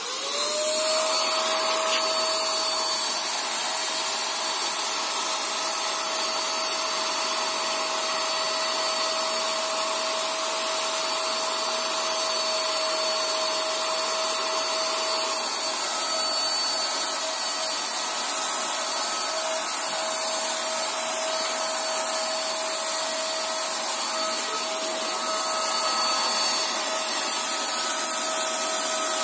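Electric paint spray machine running: its motor spins up to a steady whine in the first second, then runs on evenly with a hiss of air through the spray gun.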